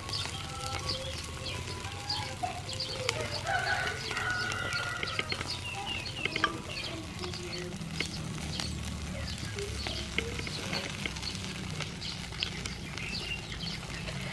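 Skewered octopus crackling and sizzling on a charcoal grill as a brush bastes it, with many short clicks. Chickens and other birds call in the background.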